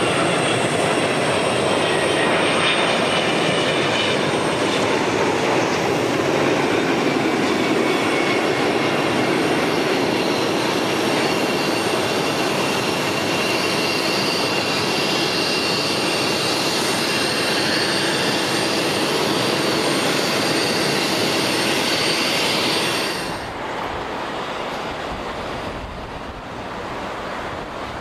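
Airliner jet engines running loud, a dense rush with steady high-pitched whines over it. Near the end the sound cuts off abruptly to a quieter rush with wind rumbling on the microphone.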